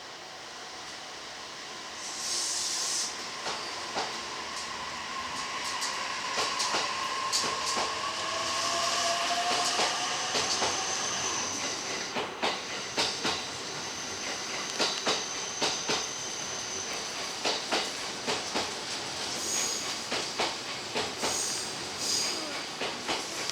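A train passing on the line, its wheels clicking over the rail joints. The sound swells over the first few seconds and stays up, with a steady rush of wheel and rail noise.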